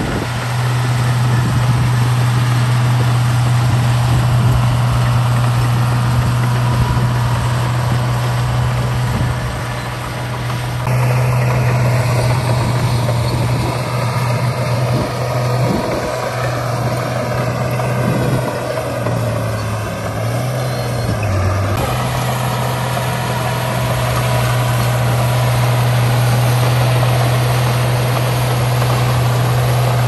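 Heavy diesel engine of earth-moving machinery running steadily, its low drone briefly dropping in pitch shortly before the sound changes abruptly about two-thirds of the way through.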